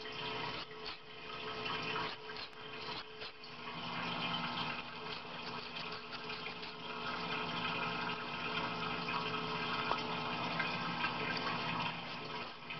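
Parts-washer pump running and cleaning fluid pouring into the sink: a steady rush of liquid with a faint hum under it.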